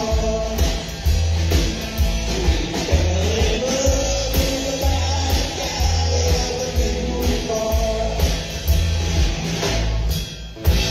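Live rock and roll band playing an instrumental passage: electric guitar lead over upright bass and drum kit with a steady beat. Near the end the band drops out for a moment and hits one loud final accent, the chord left ringing.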